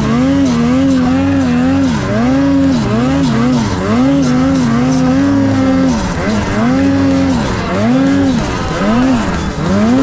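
Snowmobile engine revving hard while riding through deep powder, the throttle worked on and off so the pitch keeps dipping and climbing back, up to about 7900 rpm.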